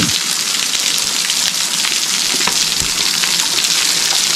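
Small forest waterfall, running with little water, splashing steadily onto rocks in an even hiss.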